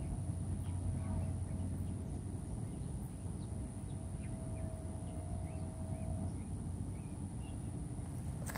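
Outdoor background noise: a steady low rumble with faint, short high chirps scattered through it and a faint steady hum. A single sharp click comes near the end.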